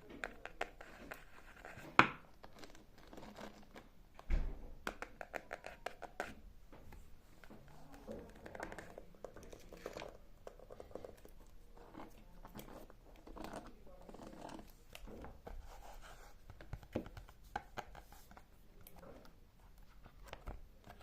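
ASMR handling sounds: crinkling, tearing and scratching with many small clicks, a sharp loud click about two seconds in and a low thump about four seconds in, under soft voices.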